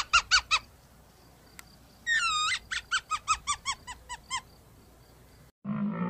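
Marmot alarm whistles: short, sharp, high calls repeated about four or five a second in two series. The first series ends about half a second in; the second begins with a longer note about two seconds in and runs until about four and a half seconds. Near the end a low, drawn-out animal call begins.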